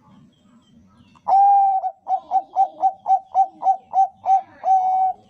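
Zebra dove (perkutut bangkok) singing: one long coo about a second in, then a quick run of about ten short coos, about four a second, ending on a longer coo.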